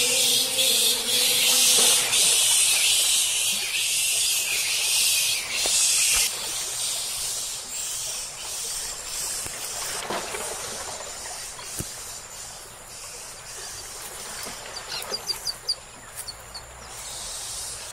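Forest insects droning in a loud, high, steady hiss that cuts off suddenly about six seconds in, leaving quieter woodland ambience. Near the end comes a quick run of short, high chirps.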